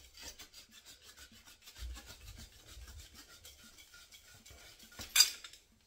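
Pipe slice being turned round copper pipe: the cutting wheel scraping round the pipe in a faint, rapid rasping. A sharp click about five seconds in.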